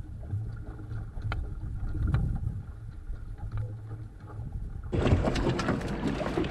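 Wind and water noise aboard a Wanderer sailing dinghy under way: a low rumble of wind on the microphone with a few faint clicks, then about five seconds in a sudden change to a louder, brighter rush of wind and water.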